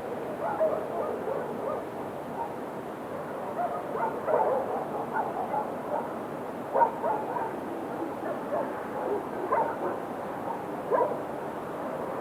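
Several dogs barking and yipping off and on, in short irregular barks over a steady background hiss, with a few louder barks scattered through.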